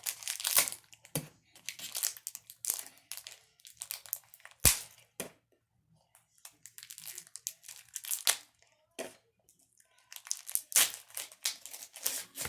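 The plastic wrapper of a pack of baseball cards crinkling and tearing as it is bitten and pulled open, in irregular bursts with pauses. A single sharp snap, the loudest sound, comes a little under halfway through.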